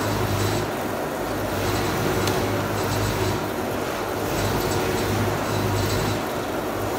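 Log debarking machine running, shaving the bark off a turning pine log: steady mechanical noise with a low hum that swells and fades about once a second, and light rattling of bark and chips.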